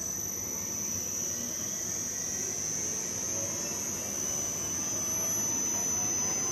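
Sigma-blade kneader running in reverse on its variable-frequency drive: the explosion-proof electric motor and gear reducer give a steady hum and whir, with a constant high-pitched whine over it.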